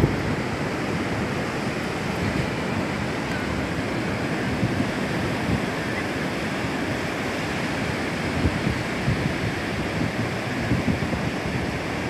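Ocean surf breaking and washing up a sandy beach in a steady rush, with wind buffeting the microphone in short low thumps, more of them near the end.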